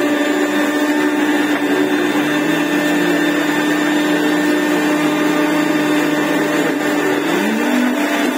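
Kent Power Grinder Blender running steadily and loudly, blending crushed ice, Oreo cookies, vanilla ice cream and milk into a milkshake. The motor's pitch rises slightly about seven seconds in.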